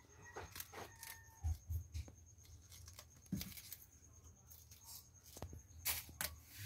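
Small scissors snipping the tough stem bases off oyster mushroom clusters, with faint irregular clicks and rustles as the mushrooms are handled and dropped into a plastic basket. Two sharper snips come close together near the end.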